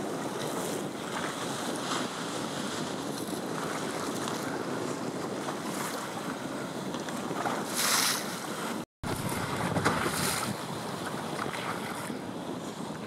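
Wind rushing over the microphone with choppy water splashing and lapping, and brief louder rushes near eight and ten seconds in. A split-second dropout to silence a little before nine seconds in.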